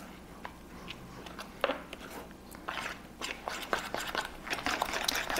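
A fork stirring beaten eggs into grated Parmesan cheese in a bowl: wet mixing with light clicks and scrapes of the fork against the bowl, sparse at first and growing quicker and busier from about halfway through.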